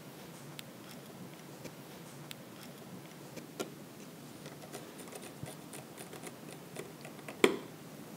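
Small screwdriver turning a screw back into a mini PC's case: a run of light, irregular ticks and clicks, with one sharper click near the end.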